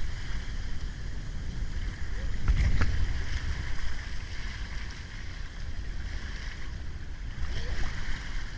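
Outdoor water-park noise: a steady wash of running water with a low rumble of wind buffeting the microphone, swelling briefly about two and a half seconds in.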